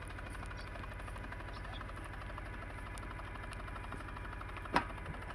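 Engine of a snow-clearing machine running steadily with a low hum, with one sharp knock near the end.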